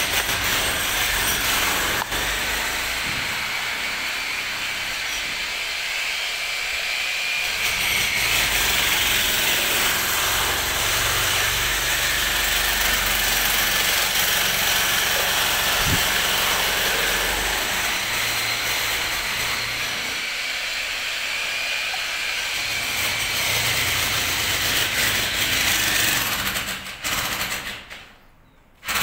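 Motorised power sprayer jetting termiticide liquid through its lance nozzle: a steady hiss of spray over the low running of the pump motor. The sound fades and cuts off near the end.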